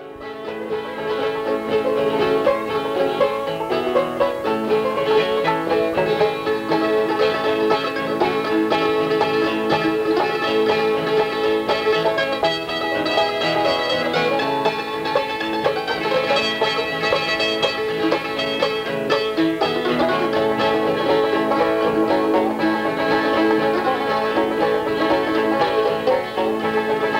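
Banjo-led bluegrass background music, starting at once and playing on steadily.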